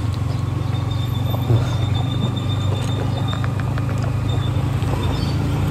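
Motorcycle engine idling steadily with a low, even rumble.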